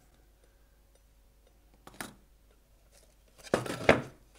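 A glued wooden speaker box being handled and set down on a workbench: one sharp knock about two seconds in, then a louder cluster of knocks and scuffs of wood against board near the end.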